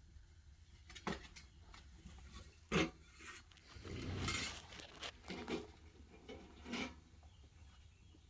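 A homemade sawdust shovel, a trailer fender on wheels, pushed and scraped through loose sawdust in separate strokes of rustling and scraping, with one sharp knock about three seconds in.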